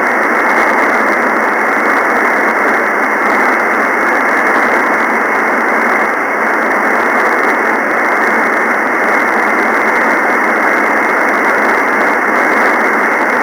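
Steady, loud hiss from a single-sideband radio receiver tuned to an empty spot in the FO-29 satellite's downlink, with no station heard.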